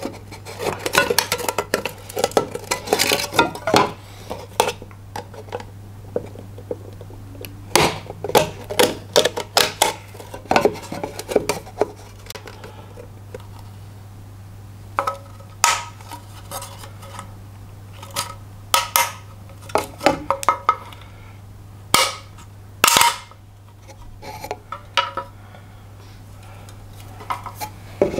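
The thin steel of a tin can being pierced and cut with hand tools: irregular metallic clicks, scrapes and crinkles, in clusters with short pauses.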